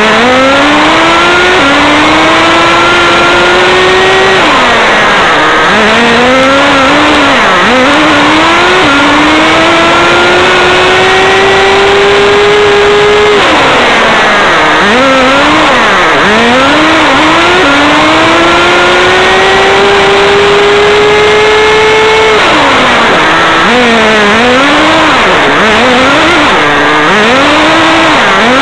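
Radio-controlled car's motor revving with a high whine: three long, steady rises in pitch as it accelerates, broken by quick up-and-down throttle blips in between.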